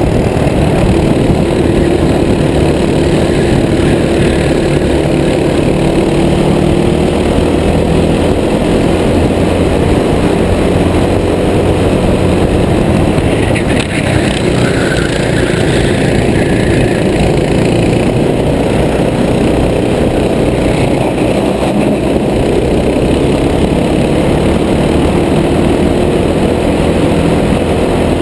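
Racing kart engine running hard under load, heard through a helmet-mounted camera. The sound is loud and steady, with a short dip about halfway through as the kart takes a corner, and then the engine picks up again.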